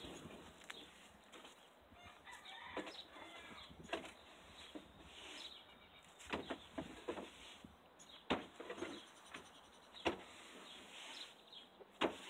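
A long-handled tool's metal head scraping and knocking on the floor of a wooden chicken coop as old straw and droppings are raked out, with a sharp knock about every two seconds.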